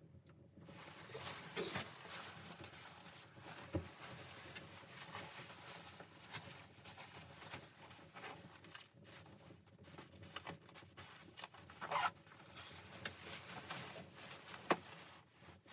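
Continuous rustling and scraping of handling noise, setting in about half a second in, with scattered clicks and a few sharper knocks.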